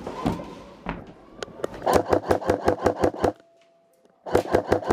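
Airsoft electric rifle firing on full auto: two bursts of about ten shots a second, each lasting about a second and a half, with a silent pause of about a second between them. A few scattered knocks come before the first burst.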